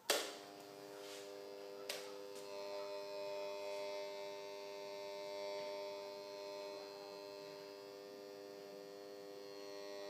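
Steady buzzing hum from the loudspeaker of a microwave probe detector, swelling and fading gently as the probe is moved through the interference maxima and minima of a two-slit microwave pattern. A sharp click at the very start and a fainter one about two seconds in.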